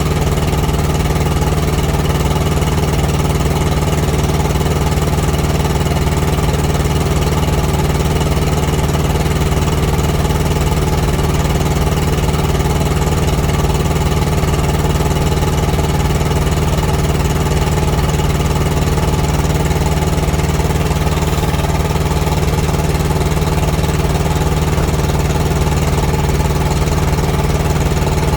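Thermo King TriPac Evolution APU's three-cylinder diesel engine running steadily, a little rough, and a bit loud from a small exhaust leak on its back side.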